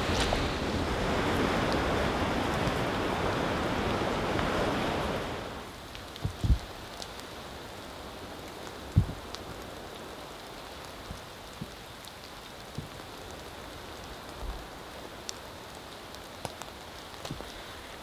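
Steady rain hiss, loud for about the first five seconds, then dropping sharply to a quieter, even patter. Scattered soft thumps sound through the quieter part.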